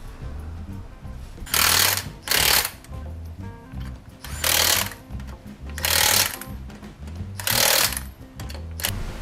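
Impact wrench hammering the wheel lug bolts tight, in five short bursts of about half a second each and one brief blip near the end, over background music.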